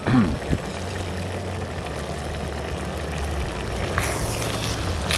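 Camping stove burner hissing steadily under a steaming, simmering pot of food. There is a brief knock right at the start and a couple of light clicks later on.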